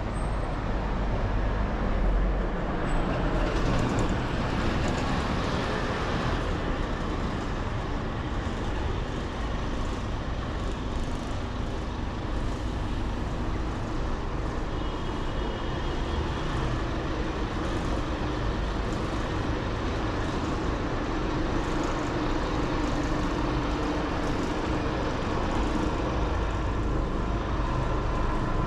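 Steady road traffic on a busy city street: continuous engine and tyre noise from passing vehicles, with a heavier vehicle's low engine note standing out for a few seconds past the middle.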